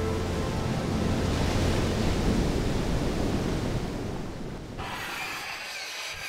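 A steady rush of sea surf and wind, easing off over the last seconds. About five seconds in, a marker pen starts scratching across a white board.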